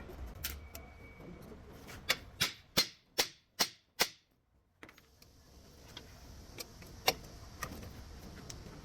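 A run of about six sharp knocks, roughly 0.4 s apart, then fainter scattered clicks and taps with one louder knock near the end.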